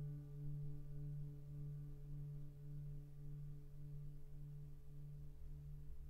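Quiet background music: a low note held with a slow pulsing wobble, its higher overtones dying away about a second in.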